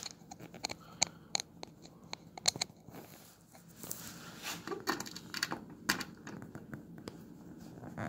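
Irregular small clicks and scrapes of a screwdriver at the battery cover of an E-Plex electronic door lock, as the cover screw is driven back in.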